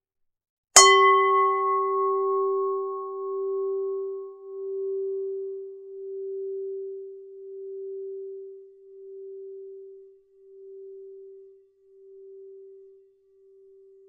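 A Buddhist standing bell, a bowl-shaped bell, struck once about a second in. Its bright upper tones die within a few seconds, while one steady low tone rings on, fading in slow pulses about every second and a half until it has nearly died away near the end.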